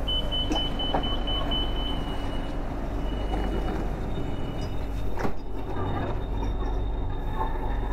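BTS Skytrain car at a station stop: the door-closing warning sounds as a high, pulsing then steady beep for about two seconds. A single thump follows about five seconds in, over the steady low hum of the train.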